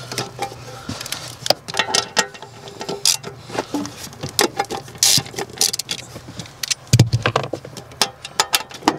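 Scattered clicks, taps and rattles of a car ECU's metal case and its plastic wiring-harness connectors being handled and pulled out from under the dash, with a heavier thump about seven seconds in.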